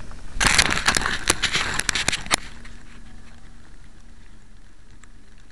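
About two seconds of loud crackling and rustling handling noise as the camera is moved and jostled in the grass, followed by a fainter steady hiss.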